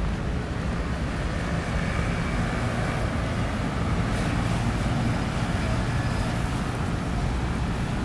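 Steady rumble of road traffic at a busy intersection: cars and motor scooters running and passing.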